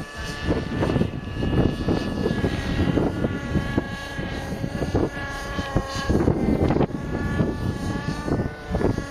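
Radio-controlled model helicopter flying overhead: a high engine-and-rotor whine that wavers slightly in pitch, over heavy wind buffeting on the microphone.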